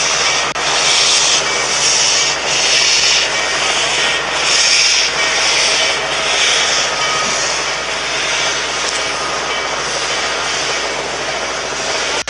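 Norfolk & Western 611, a J-class 4-8-4 steam locomotive, getting under way: a steady rush with rhythmic bursts of hissing exhaust about once a second, evening out into a steadier rush after about seven seconds.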